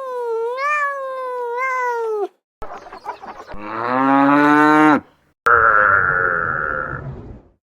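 A cat meows in one long, wavering call. After a short gap a cow gives a low moo that rises and then falls, followed by a shorter, rougher animal call.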